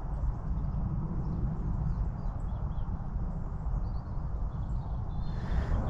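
Footsteps on a rocky hilltop path, with wind rumbling on the microphone.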